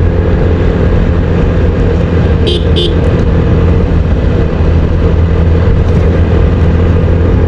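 TVS Apache single-cylinder motorcycle engine running steadily while cruising in fifth gear on a paved road. Two short high beeps sound about two and a half seconds in.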